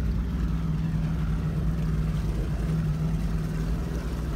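An engine running steadily at a constant pitch, a low hum with rumble underneath.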